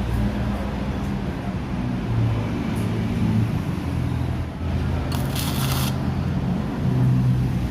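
Electric welding setup with a steady low hum and rumble, and a short crackling hiss of the welding arc about five seconds in.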